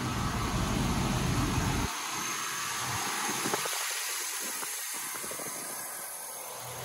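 2004 Chevy Tahoe's 5.3 L LM7 V8 engine idling, with a steady hiss over it. A deep low rumble is strong for the first two seconds or so, then drops away.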